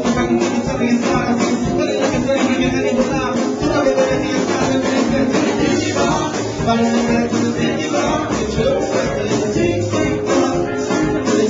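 Live band playing Latin-flavoured music: several voices singing into microphones over conga drum, electric guitar and keyboard, with a shaken percussion rhythm.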